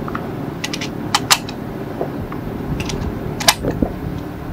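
Rifle magazine being loaded by hand with .308 Winchester cartridges, each round clicking as it is pressed in past the feed lips. About half a dozen sharp clicks come unevenly, a second or so apart, over a steady hiss.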